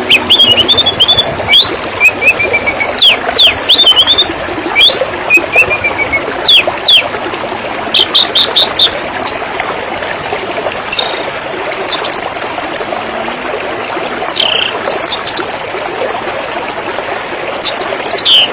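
A small stream trickling and gurgling steadily, with birds chirping over it in sharp sweeping calls and a few short rapid trills.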